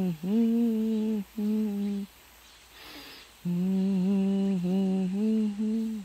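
A person humming a slow tune without words, holding long notes in phrases broken by short pauses, with a breath taken about halfway.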